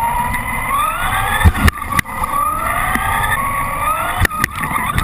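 Electric motor of a Traxxas Slash RC short-course truck driving, its whine rising in pitch again and again as it accelerates. There are a few sharp knocks, a pair of them about four seconds in as the truck runs into a water balloon.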